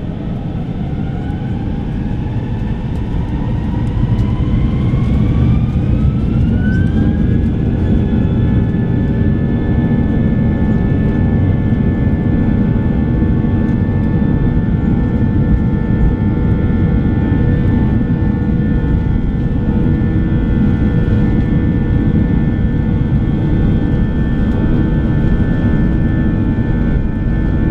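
Airbus A321-200's jet engines heard from inside the cabin spooling up: a whine climbs in pitch and the rumble grows louder over the first several seconds, then the whine levels off and holds steady over a loud rumble, as takeoff thrust is set for the takeoff roll.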